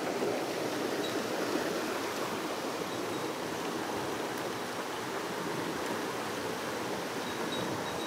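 Mountain stream water running steadily, an even rushing noise with no distinct splashes.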